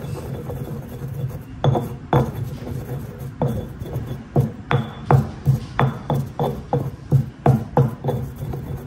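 A stone pestle (tejolote) pounding and grinding toasted chiles with salt in a volcanic-stone molcajete. Stone scrapes on stone at first, then comes a run of knocks about two or three a second as the chiles are crushed to a paste.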